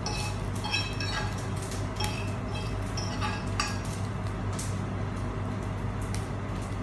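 Metal utensil clinking and scraping against a black non-stick frying pan and a ceramic bowl as fried noodles are pushed out. About half a dozen light clinks with a brief ring come in the first few seconds, over a steady low hum.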